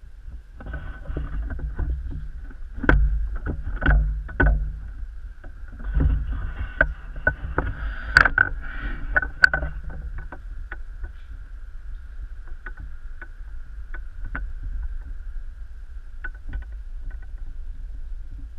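Footsteps crunching and knocking over rubble and fallen plaster, with low rumbling handling noise from a handheld camera and a faint steady whine. The sharp knocks come thickest in the first half and thin out later.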